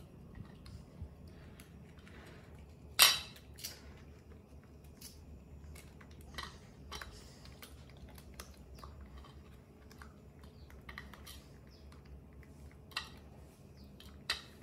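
Sparse small clicks and taps from a small knife cutting fruit and a baby monkey eating and handling fruit slices by a ceramic plate, with one sharp, much louder click about three seconds in and two more clicks near the end.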